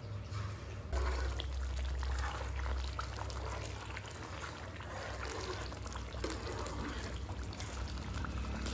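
Thick chicken curry bubbling and sloshing in a metal karahi as a ladle stirs it, with scattered clicks of the ladle against the pan. It gets louder about a second in.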